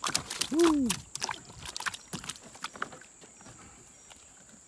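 Freshly netted fish flopping and slapping against the bottom of a wooden boat: a quick run of knocks and thuds that thins out about three seconds in. A short voice-like sound rising and falling in pitch comes under a second in.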